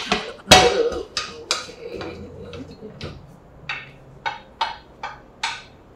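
Cookware clattering about half a second in, then a series of short scrapes and taps of a spatula against a plate of fried rice, roughly two a second, as the rice is pushed into place.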